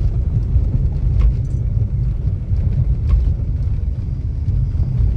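Car driving on a rough unpaved dirt road, heard from inside the cabin: a steady low rumble of engine and tyres on the track.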